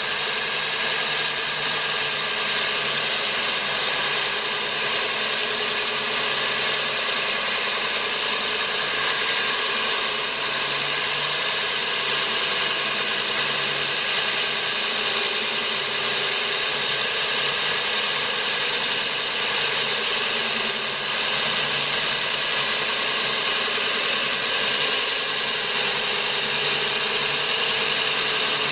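Cuttronix CM-10S3 core drill, a 3.0 kW 230 V single-phase motor, running steadily under load as its 200 mm core bit cuts into a concrete block.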